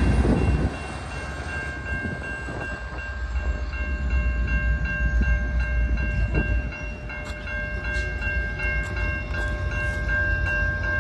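Grade-crossing warning bell ringing in a quick, even pulse over the low rumble of two EMD F59PH diesel locomotives and their train pulling away. The rumble drops off sharply about a second in and then carries on lower as the train recedes.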